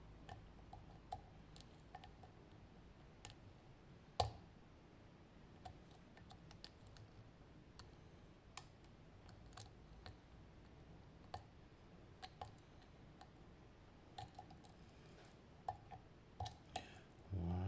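Lock pick and tension wrench working the pins of an ASSA Maximum+ Restricted cylinder: faint, irregular small metallic clicks as the pins are probed and set, with a duller knock near the end.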